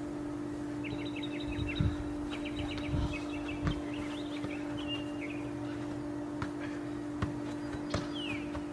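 Birds chirping in quick short trills over a steady low hum, with a few dull thumps in the first four seconds.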